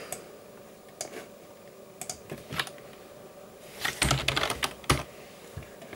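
Computer keyboard keystrokes and mouse clicks: a few scattered clicks, then a quick run of keystrokes about four seconds in, over the steady hum of a CPU cooler fan running under full load.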